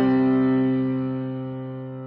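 Background music: one sustained chord struck at the start, slowly fading away.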